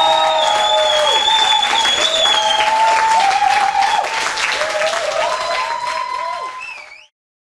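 Audience applauding and cheering, with held shouts over the clapping. It fades and cuts to silence about seven seconds in.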